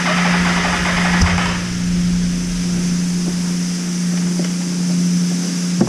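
Yamaha VMAX 1200's V4 engine idling with a steady hum, under a hiss of water spray that stops about one and a half seconds in. A short knock about a second in.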